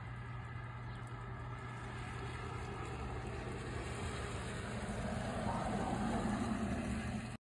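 A motor vehicle's engine with a steady low hum, growing louder over the last few seconds, then cutting off suddenly.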